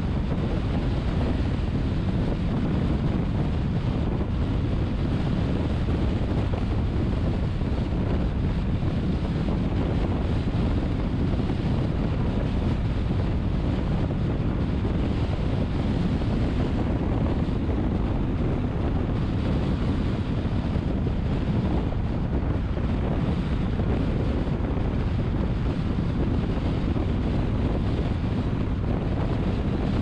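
Steady road and wind noise from a car cruising on an expressway, with wind rumbling on the microphone.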